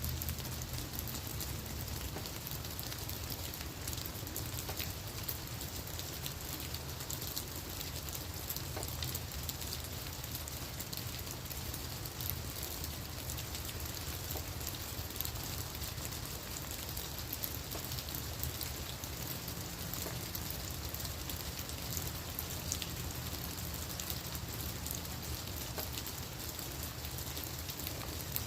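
Steady rain falling on leaves and on the ground, a continuous patter with many small drop ticks.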